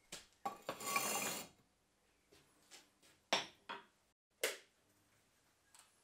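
A scraping rush lasting about a second, then several sharp metallic clinks, from tools and fire bricks being handled at a small fire-brick forge.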